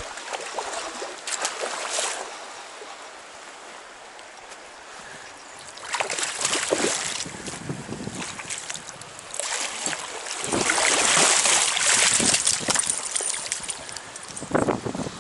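River water splashing and rushing, in uneven bursts. It is quieter a few seconds in, then louder splashes come about six seconds in and a long loud rush runs from about ten to thirteen seconds in.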